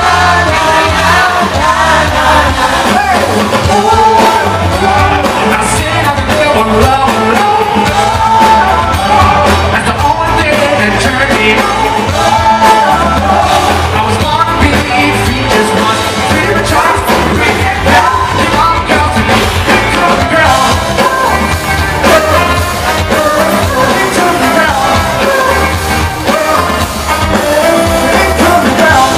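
A live band plays continuously, with drums, bass, electric guitars and singing. It is heard as a loud audience recording in a large concert hall.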